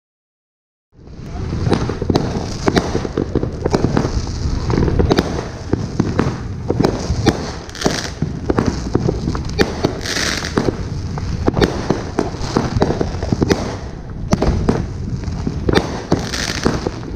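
A Brothers Pyrotechnics Irish Legend 350-gram, 30-shot firework cake firing in quick succession, starting about a second in: a dense run of shots and sharp bursts with crackling.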